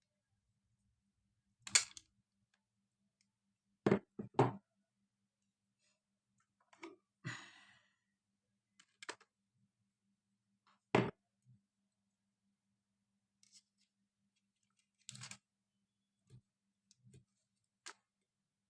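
Scattered sharp clicks and knocks of hand tools working on thin electrical cable, with a short scraping rasp about seven seconds in, as the wire is split and its insulation stripped.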